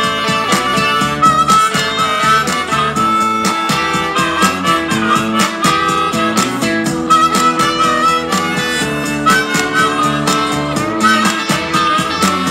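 Amplified blues harmonica played cupped against a hand-held microphone, with wavering, bent notes, over a blues backing with a steady beat.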